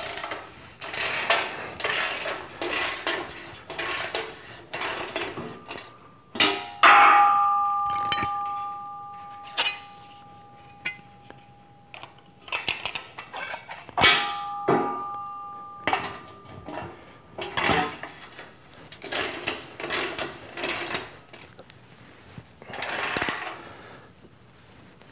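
Ratchet wrench clicking in quick runs as bolts on a steel squat rack upright are worked loose and back in, with metal clinks and clanks. Twice a sharp clank sets the steel ringing with a clear two-tone ring that fades away over a few seconds.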